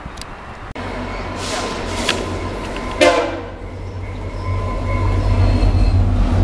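VIA Rail passenger train's diesel locomotive approaching and passing below, its low engine rumble growing steadily louder. A brief loud burst of noise comes about three seconds in.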